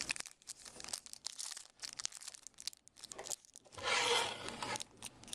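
A hockey card pack's wrapper being torn open by hand: crinkling and small crackles, with a longer, louder tear about four seconds in.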